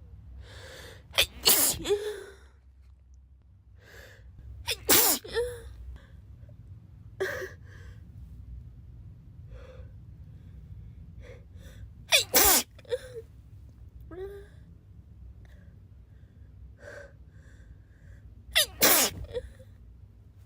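A girl sneezing repeatedly, four loud sneezes several seconds apart with a weaker one between, each with a short breathy catch of the voice around it.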